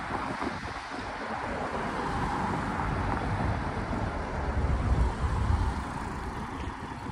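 Steady rumble and rushing noise of a moving Amtrak train, with wind gusting on the microphone.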